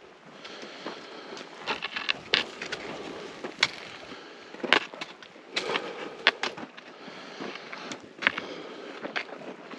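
Footsteps crunching and scraping on loose volcanic gravel during a steep climb, an irregular run of sharp crunches, some in quick clusters.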